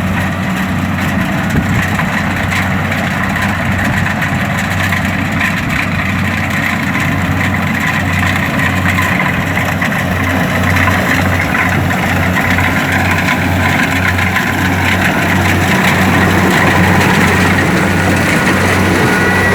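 Kubota DC-70 combine harvester running steadily while harvesting rice: a dense mechanical din over a steady low diesel hum, growing slightly louder near the end.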